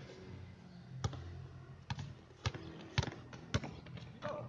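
Basketball bouncing on a hard outdoor court: five sharp bounces, roughly half a second to a second apart, as a player dribbles.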